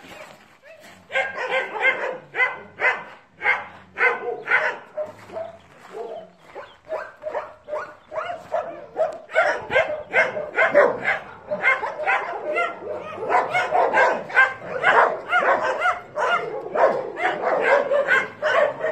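Dogs barking over and over in short barks with some higher yips, spaced out at first and becoming denser and overlapping about halfway through.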